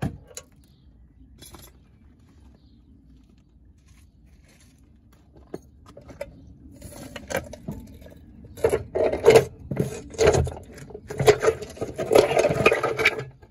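Quiet for the first several seconds, then from about seven seconds in an irregular run of metallic clinks, clatters and scrapes as the steel ball joint separator is worked off the freed track rod end.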